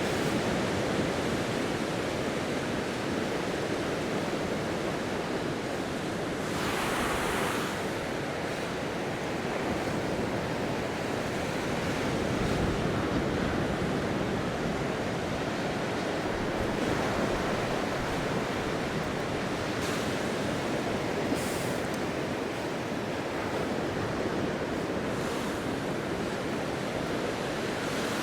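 Ocean surf washing onto a beach, a steady rushing noise with a slightly louder wave about seven seconds in, mixed with a little wind on the microphone.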